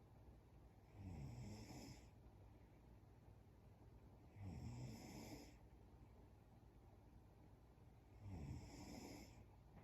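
A sleeping woman snoring faintly: three snores, each about a second long and about four seconds apart.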